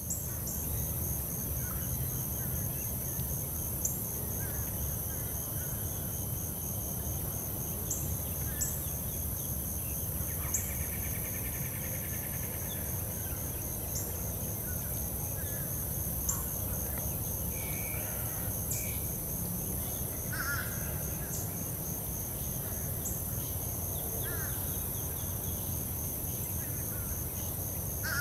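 Marsh ambience: a steady high insect trill with a low rumble underneath, and scattered short calls of birds, including a buzzy call about ten seconds in and a few chirps later on.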